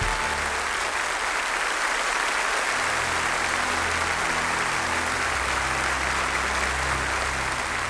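A large audience applauding, a steady dense clapping that holds at one level throughout.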